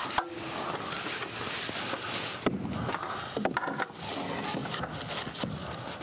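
Wooden boards being handled and fitted into place against the shed's siding: a few irregular sharp knocks of wood on wood, with rubbing and scraping between them.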